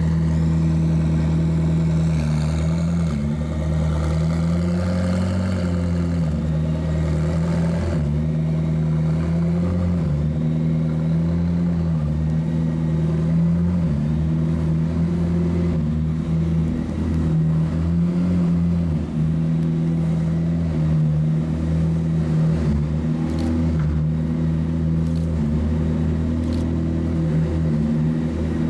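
McLaren P1 GTR's twin-turbo V8 idling steadily, its pitch lifting slightly and settling back several times.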